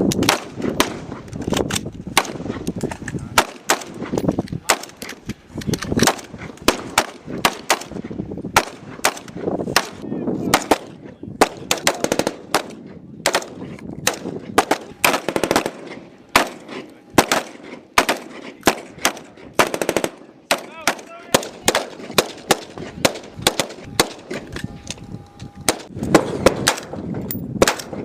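Battlefield gunfire ambience: scattered rifle shots and short automatic bursts, irregular and overlapping, over a low rumbling background.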